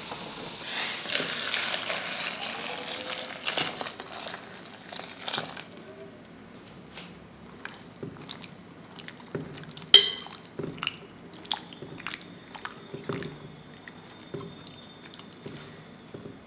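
Liquid bubbling hard at a boil in a steel pot for about five seconds, then a steel spoon clinking and knocking against a steel bowl of soaking cauliflower florets, with the sharpest clink about ten seconds in.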